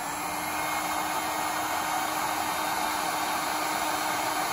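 Electric heat gun blowing steadily, a fan hiss with a faint low steady hum, as it shrinks non-adhesive heat-shrink tubing over a crimped female spade terminal.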